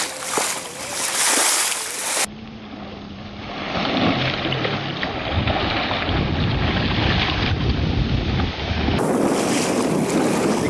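Wind buffeting the microphone over the rush of water along a sailboat's hull at sea. The noise changes abruptly about two seconds in and again near the end, from a hiss to a lower rumble and back.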